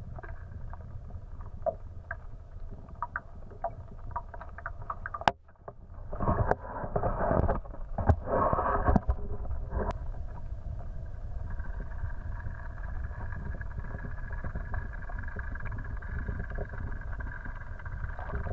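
Muffled underwater sound of a small boat's outboard motor running: a steady low rumble with an even hum. A louder stretch of water noise comes about six to nine seconds in, while a released chain pickerel swims off beside the boat.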